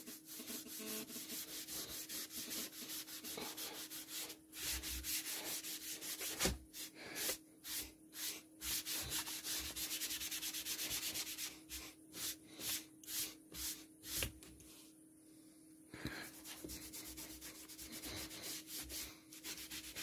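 A small pad rubbed by hand, back and forth over a stained wooden board: dry, scratchy rubbing in quick strokes, with a short pause about three-quarters of the way through.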